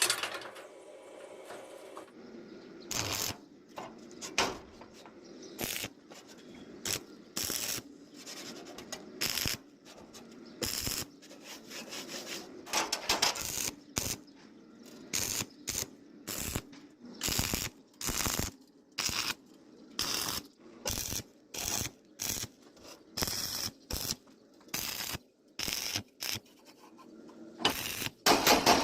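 A long series of short scraping strokes on metal, roughly one a second, over a faint steady background hum.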